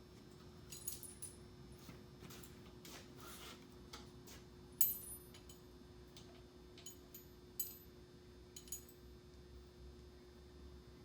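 Scattered light metallic clinks and taps of hand tools and engine parts being handled, several with a brief high ringing; the sharpest clink comes about five seconds in. A faint steady hum runs underneath.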